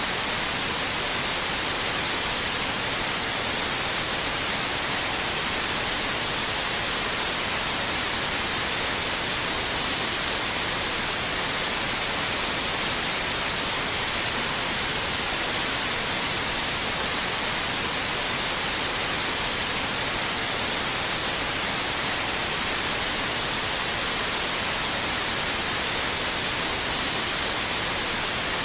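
Steady white noise: an even, unchanging hiss that is brightest in the highs.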